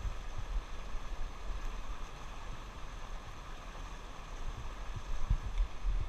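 Shallow, rocky stream running over stones: a steady rush of water, with irregular low thumps on the microphone.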